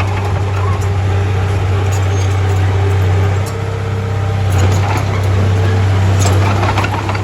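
Heavy diesel engine of earthmoving machinery running steadily. Its level dips about three and a half seconds in and comes back up about a second later, with scattered knocks and clatter over it.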